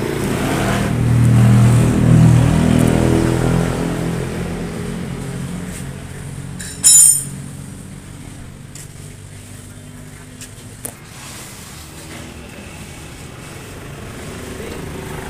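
A motorcycle engine running close by, loudest in the first few seconds and then fading away. A short, sharp, high-pitched squeal cuts in just before the halfway point and is the loudest sound.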